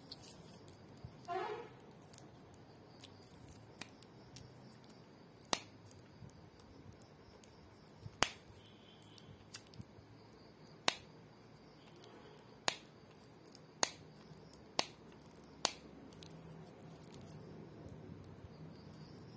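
Sharp plastic clicks and snaps as a plastic-wrapped wireless earbud charging case is handled, about seven loud ones spaced a second or two apart through the middle, with fainter clicks between. There is a brief squeaky rub about a second in.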